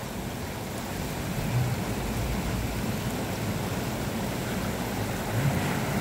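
Steady rush of a fast, muddy stream, with the faint low engine note of a Maruti Suzuki Gypsy 4x4 coming down the gravel bank beneath it, swelling briefly about a second and a half in and again near the end.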